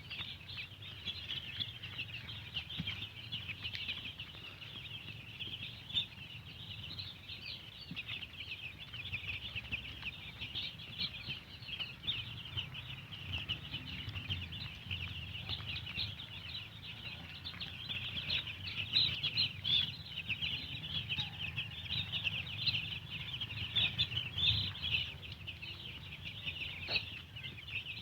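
A large flock of chickens in a poultry house calling continuously: a dense, high-pitched chatter of many overlapping short calls. A steady low hum runs underneath.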